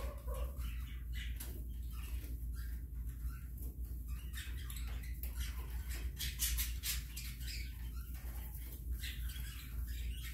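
Chickens scratching and pecking in wood shavings: a busy run of light rustles and ticks, thickest a few seconds in, with a couple of soft clucks at the start over a steady low hum.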